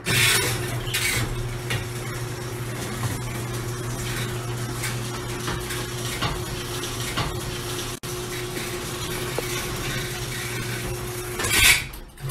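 Electric garage door opener running after its wall button is pressed: a steady motor hum while the door rattles along its metal track as it closes. A sudden loud noise comes near the end.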